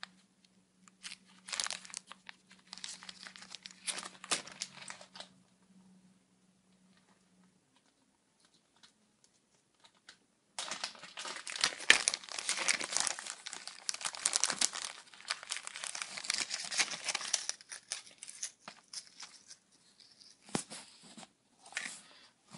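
Packaging crinkling and rustling as a chain is taken out and untangled: a few short bursts in the first five seconds, a quiet pause of about five seconds, then a long stretch of dense crinkling from about ten seconds in, thinning to scattered rustles near the end.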